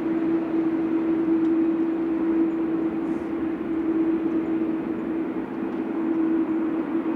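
Jet airliner's engines at takeoff thrust: a steady roar with a strong low hum running through it.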